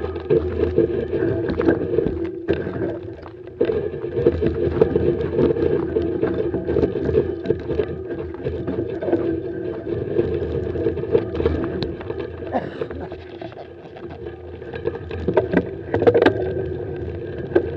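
Bicycle being ridden: a steady rolling hum with many small clicks and rattles from the tyres and bike over the road, plus wind on the microphone. It drops briefly about two and a half seconds in.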